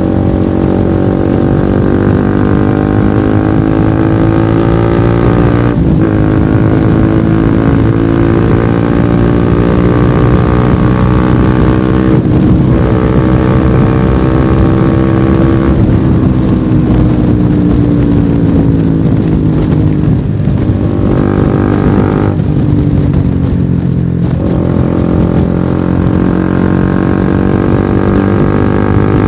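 Honda CBR150R's single-cylinder engine with an aftermarket exhaust, running under way while the bike is ridden. The engine note rises and falls, with a handful of short breaks where it changes pitch, and it drops slowly for several seconds past the middle.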